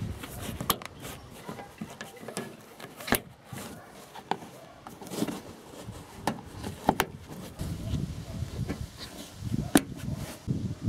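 Gloved hands pressing and rubbing a felt trunk-lid liner back into place, with several sharp clicks as its plastic push-in retaining clips snap home.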